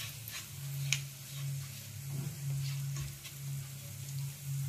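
Whole coriander and cumin seeds sizzling in hot oil in a pan, with a few light clicks as a wooden spatula stirs them. A low hum comes and goes underneath.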